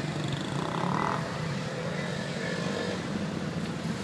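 Engines of slow-moving classic cars and marshals' motorcycles running steadily at low speed, with a short higher-pitched sound about a second in.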